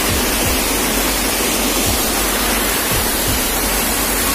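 Waterfall pouring down a rock face close by: a loud, steady rush of water.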